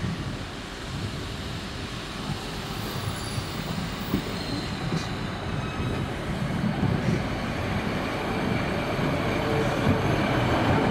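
A train running on the track, growing steadily louder as it approaches.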